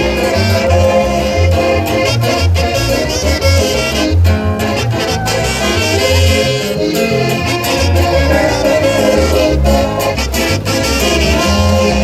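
Latin music with a steady, pulsing bass line.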